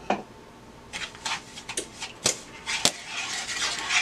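Wooden spoon stirring sugar into melted butter in a pot, scraping the pan with a few sharp knocks; the scraping turns continuous in the last second.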